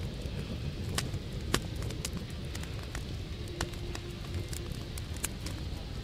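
Open wood fire blazing, crackling with scattered sharp pops over a steady low rumble.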